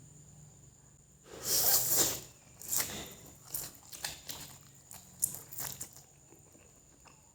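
A person eating fried noodles close to the microphone: a long slurp of noodles beginning about a second in, then a run of irregular chewing and mouth-smacking sounds.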